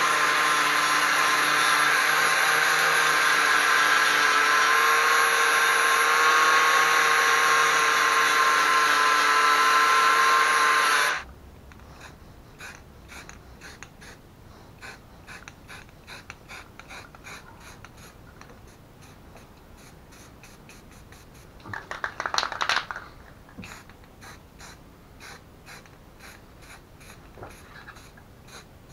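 A motor-driven power tool runs steadily with a few whining tones, then cuts off abruptly about eleven seconds in. After that only faint rapid ticking remains, with one brief louder noise about twenty-two seconds in.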